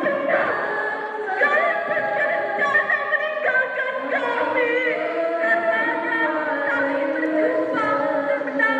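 Young female voices singing an Arabic verse together without instruments, holding long notes that glide up and down.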